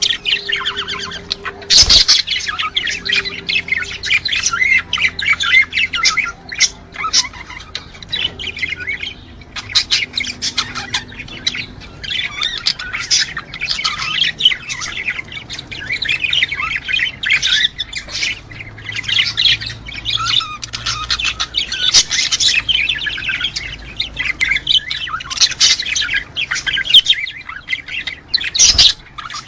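Budgerigars chattering and warbling in a continuous stream of rapid chirps and squawks, the courtship chatter of budgies in breeding condition. There is a sharp click about two seconds in and another near the end.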